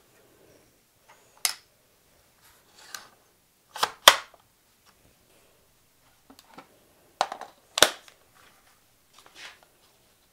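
A run of sharp plastic clicks and knocks as a Ryobi P320 cordless brad nailer is handled on a wooden workbench. The loudest are a pair of snaps about four seconds in and another pair a little after seven seconds, with softer rustles between.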